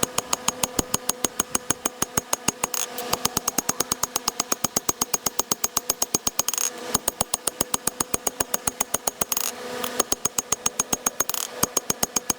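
Rapid, even hammer blows on hot wootz steel over an anvil, about six or seven a second with a ringing note on each strike, stopping briefly a few times: the bevels being forged into a tanto blade.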